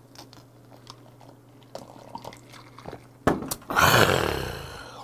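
A man gulping a whisky highball, with small mouth and swallowing clicks. Near the end comes a sharp knock like the glass set down on the wooden table, then a loud, raspy exhaled exclamation after the drink that fades away.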